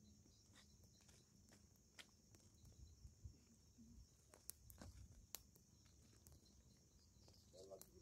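Wood bonfire burning, faint, with sparse irregular crackles and sharp pops from the burning wood over a low rumble. A few louder pops come in the middle.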